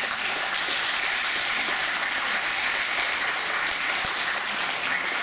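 A large group of judoka, mostly children, applauding together: steady, dense clapping from many hands.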